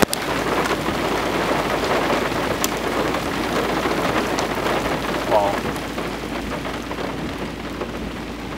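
Steady rain pattering, with a few sharper drop hits.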